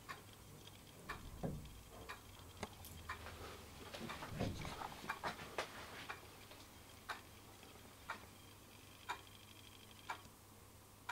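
Wall clock ticking about once a second. Around the middle a cluster of quicker clicks and two soft low thumps join the ticks.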